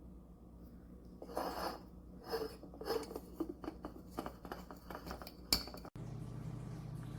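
Handling noises of small hard objects: irregular rustles, light taps and clinks, ending in one sharp click. Just before the end the sound breaks off, and a steady low hum takes over.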